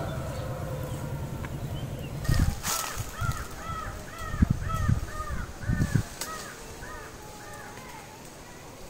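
A bird in the tree canopy calling a run of about a dozen short, arched notes, roughly two a second. Over the first half of the calls come a few low thumps, and before the calls start there is a steady low rumble.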